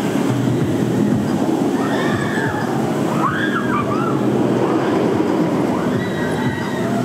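Roller coaster train running along its steel track on a wooden structure, a steady rolling roar, with riders' screams rising and falling over it a few times.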